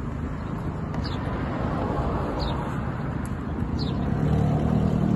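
Street traffic: a steady rumble of passing cars, with one vehicle's engine growing louder in the last second or so. A short high chirp that falls in pitch repeats about every second and a half.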